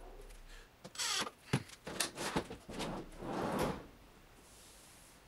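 Wooden drawers sliding along metal ball-bearing drawer slides: a few short sliding strokes and clicks.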